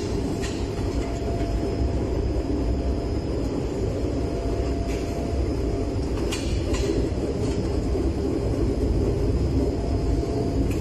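Microwave tunnel dryer running: a steady low mechanical rumble with a faint steady whine, and a few light clicks about half a second in and around the middle.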